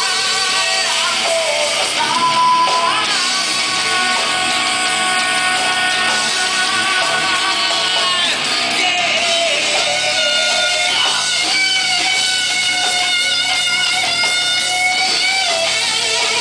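Live rock band playing amplified guitars and drums, with a singer holding long, gliding notes.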